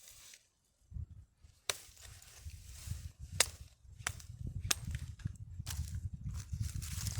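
A blade chopping into wood: a series of sharp strikes at an uneven pace, starting about a second in, over a low rumble.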